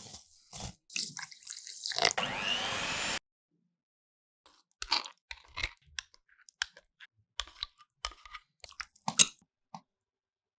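Food being prepared: about three seconds of rushing noise broken by short bursts, which cuts off abruptly, then a scatter of short crunches and clicks.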